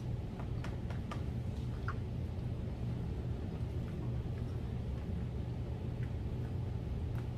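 Quiet room tone: a steady low hum, with a few faint soft clicks from chewing a taco.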